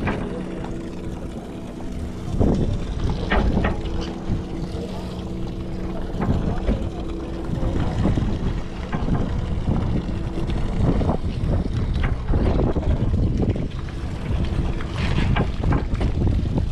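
A boat's engine running with a low rumble and a steady hum, with wind rushing on the microphone and scattered knocks.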